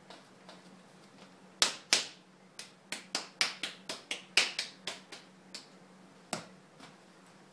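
Hands slapping and patting a lump of freshly wedged potter's clay into a cone: a quick run of about fifteen sharp slaps starting about a second and a half in, the first two loudest, with a last single slap near the end.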